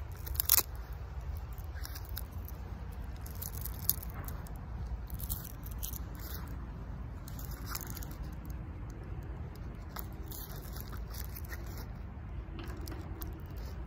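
Capri Sun foil drink pouch crinkling sharply as it is bitten at the mouth, then being sipped through its straw with scattered small crinkles and sucking sounds. A steady low rumble of wind on the microphone runs underneath.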